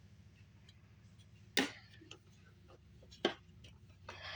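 A few sharp clicks and light handling noises from a Bissell CleanView Revolution upright vacuum as it is opened to get at its filters. The two loudest clicks come about a second and a half and three seconds in.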